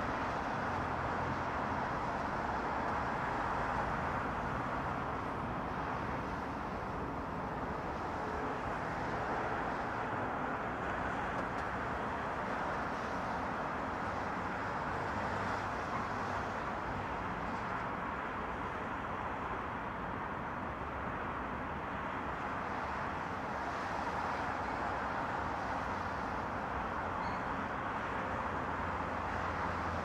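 Distant multi-lane highway and city traffic: tyre and engine noise blended into one continuous hum with no single vehicle standing out, swelling slightly now and then.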